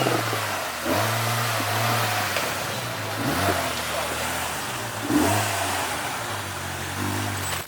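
Off-road vehicle engine revving in several surges, its note rising and falling over a steady rush of noise.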